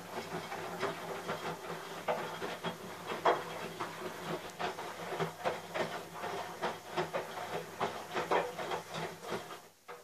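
Handling noise from a pewter beer stein turned over in the hands: irregular small knocks and rubbing, a few a second, which stop shortly before the end.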